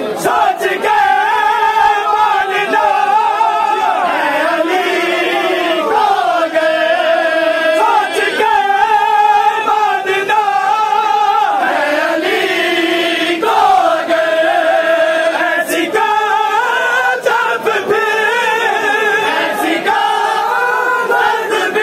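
A group of men chanting a Shia mourning noha together in one melody, with long held notes.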